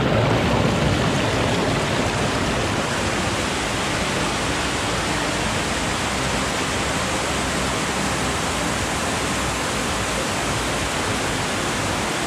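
Underground stream running and cascading over rock, a steady, even rush of water.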